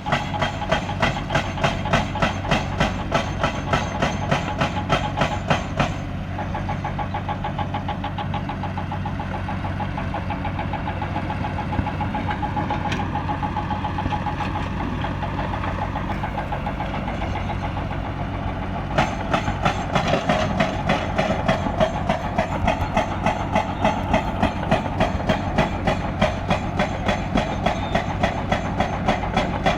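Hydraulic excavator's diesel engine running with a steady low hum and a regular clatter about three times a second. The clatter drops away about six seconds in, leaving a steadier running sound, and comes back about a third of the way from the end.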